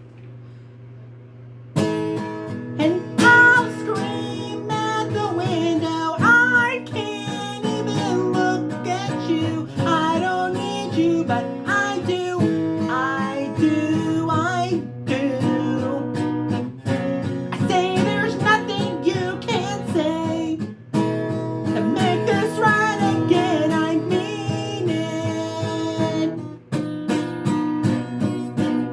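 Acoustic guitar strummed with a voice singing over it, starting about two seconds in after a low hum.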